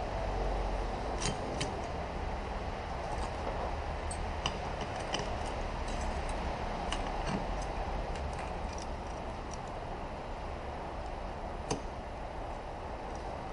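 Scattered light clicks and clinks of small metal transmission parts and hand tools being handled, over a steady background hum.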